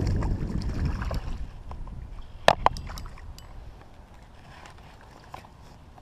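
Low rumble of wind on the microphone that dies away about a second in, then a pair of sharp clicks about two and a half seconds in, with a few fainter ticks after.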